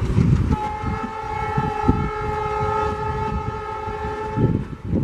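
Horn of an ALCO WDM-3D diesel locomotive sounding one long, steady blast that begins about half a second in and stops near the end. Beneath it, the rhythmic thumping of the moving train.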